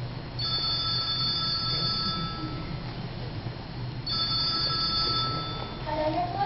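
Telephone ringing twice, each ring a steady electronic trill of about two seconds with a pause between.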